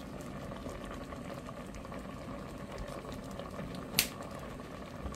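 Canned peaches in syrup bubbling steadily in a pot on the stove. A single sharp click about four seconds in.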